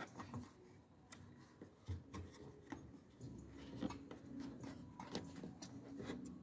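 Faint, scattered light clicks and rubbing as a hand handles and pushes against the plastic trim around a Peugeot 308's headlight.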